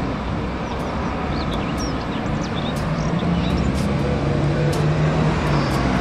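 Double-decker city bus running on a street, amid traffic noise. Its low engine drone grows stronger about two seconds in.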